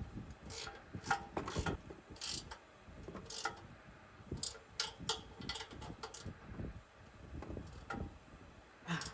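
Hand socket ratchet clicking in short, uneven bursts as the bumper's mounting bolts are tightened.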